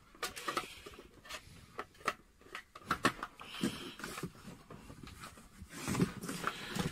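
Handling noise from a plastic dust cap being fitted onto the end of a telescope tube while the tube is moved in its cardboard box: scattered light clicks and knocks, with a short rubbing scrape a little after halfway.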